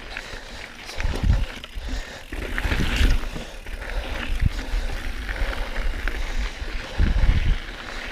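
Mountain bike ridden over a rough dirt trail: the bike rattling and clicking over the ground, with gusts of low rumble on the microphone, strongest near the end.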